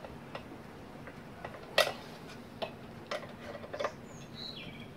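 Scattered light clicks and taps of a screwdriver and hands on the plastic housing of a Kenwood Chef mixer as its motor cover is screwed down, with one sharper click a little under two seconds in.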